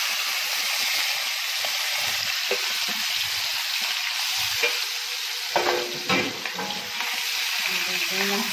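Liver pieces sizzling in hot oil in a pan, a steady hiss, just after being put into the oil. A few knocks and scrapes against the pan about six seconds in.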